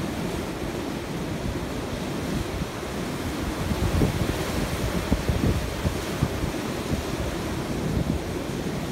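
Sea surf breaking and washing over a rocky shore, with wind buffeting the microphone. The surf swells louder about four to six seconds in as a wave breaks.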